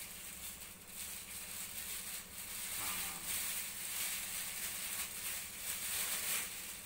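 Electric desk fan running with a steady hum while a thin plastic bag held in its airflow rustles and crackles as it fills with air.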